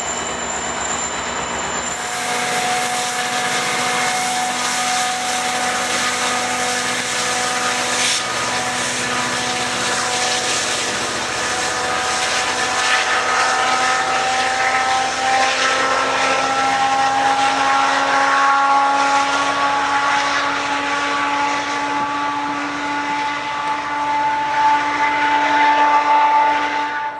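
Diesel locomotive of a GO Transit commuter train running and throttling up: several steady engine tones rise slowly in pitch over about twenty seconds above a broad rushing noise, growing louder near the end.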